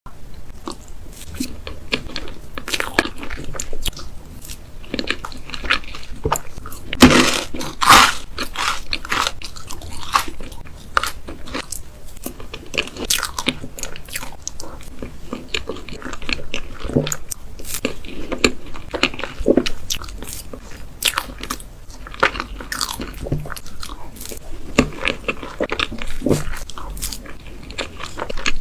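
Close-miked eating of cake: continual biting and chewing with soft crunches and wet mouth clicks, the loudest bites about seven and eight seconds in.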